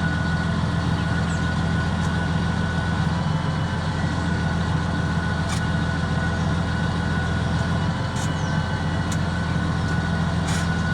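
Massey Ferguson 7614 tractor's diesel engine running steadily with an even, unchanging note. The tractor starts hard, lacks power and sometimes stalls suddenly.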